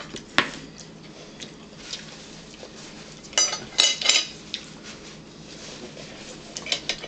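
Tableware handled at a dinner table: a single sharp click about half a second in, then a short cluster of clinks and clatters of a fork and dishes a little past three seconds in.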